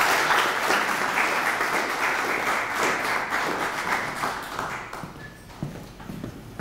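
A small audience applauding, the clapping dying away about five seconds in.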